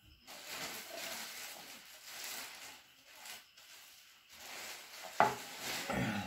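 Drinking water from a glass, then a sharp knock about five seconds in as the glass is set down on a wooden table.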